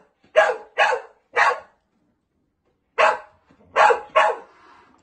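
Large dog barking at a person in a clown mask: three loud barks in the first second and a half, a pause, then three more from about three seconds in.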